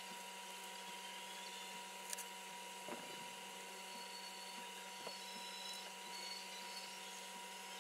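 Hot tip of a wood-burning pen being pressed into a polymer pistol grip to stipple it, giving a few faint ticks, about three spread over several seconds, over a faint steady hum.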